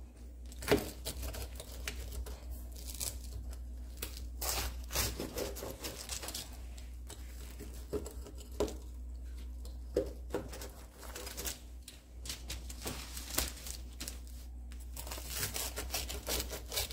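Pizza cutter wheel pressing through the crisp, flaky puff-pastry crust of a baked pie, the crust crackling and crunching irregularly with sharper snaps now and then, along with the crinkle of the baking paper beneath.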